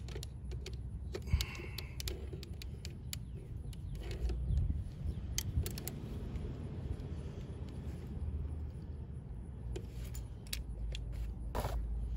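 Scattered small metallic clicks and clinks of a hand driver and then a torque wrench on the final-drive oil fill bolt of a 2013 Honda PCX150 scooter as the bolt is threaded in and torqued down, with one sharper click about a second and a half in. A low steady rumble lies under it throughout.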